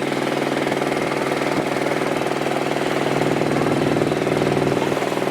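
A boat's engine running steadily, with a fast even pulse.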